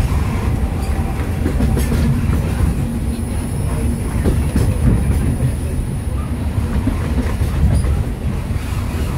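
Narrow-gauge steam train's passenger coach running along the track: a steady low rumble with a scattered clickety-clack of wheels on the rails, heard from the open-sided car.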